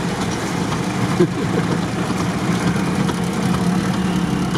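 Off-road 4x4's engine and drivetrain droning steadily as heard from inside the cabin, the vehicle crawling along a rutted dirt track in low-range gearing.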